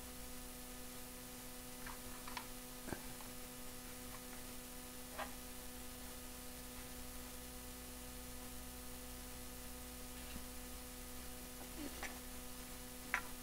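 Steady electrical mains hum, with a few faint clicks and taps as plastic model hull parts are handled; the sharpest click comes near the end.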